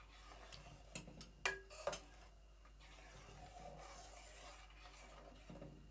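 Metal spoon stirring thick tomato soup in a pot, scraping and rubbing along the bottom and sides, with a few light clinks against the pot between about one and two seconds in.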